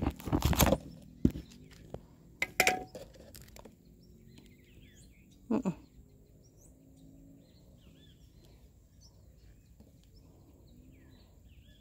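Handling knocks and rustles in the first second, then a few sharp clicks, then faint birds chirping in the background. One falling sweep comes about halfway through.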